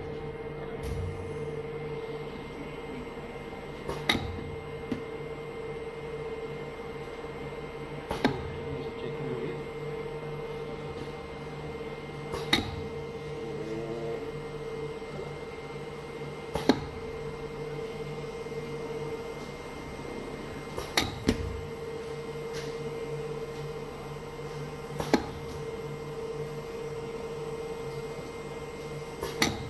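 Butter rework pump, screw feeder and conveyor running with a steady machine hum. A sharp clack comes about every four seconds as the slicing mechanism at the discharge cuts the extruded butter cylinder into a portion.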